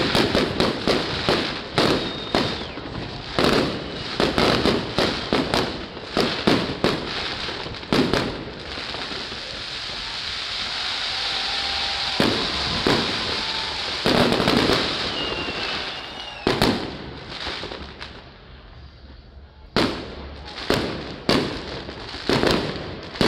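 Fireworks display: rapid bangs of shells bursting overhead, giving way about halfway to a steady crackling hiss. After a short lull, a few more bangs come near the end, and a few short whistles are heard along the way.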